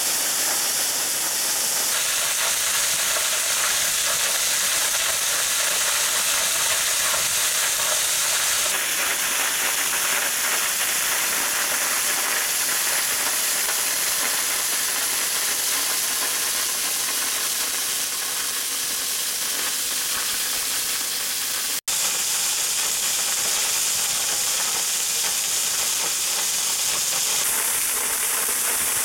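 Waterfall water falling down a rock face and splashing onto the rocks below: a steady, hissing rush of spray. The sound drops out for an instant about three-quarters of the way through.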